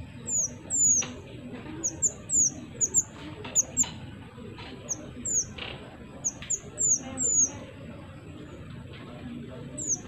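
Mantenan songbird singing a quick, irregular run of short, high, downward-slurred chirps.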